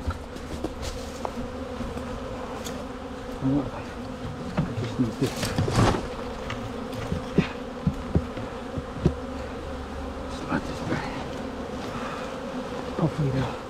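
A swarm of honeybees buzzing in a steady hum around a box that it has just been shaken into. A few sharp knocks come through the buzzing.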